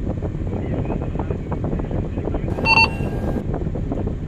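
Large hydraulic mining excavator's diesel engine and hydraulics running hard, heard from the cab, as the bucket digs into and lifts loose rock. A short electronic beep sounds about two-thirds of the way through.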